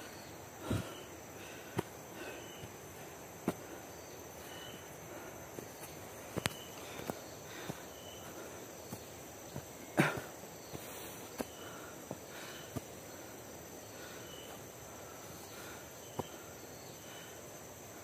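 Insects chirring steadily in a high pitch, with short repeated chirps, over footsteps crunching on dry leaves and wooden steps of a forest trail. Scattered snaps and knocks, the loudest about ten seconds in.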